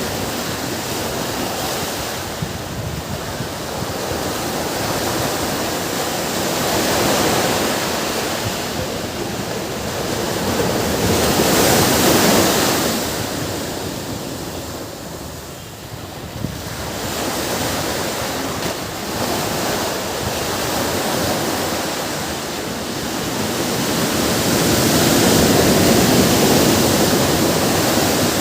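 Ocean waves breaking and washing on a beach, the surf swelling and ebbing every few seconds, with wind on the microphone.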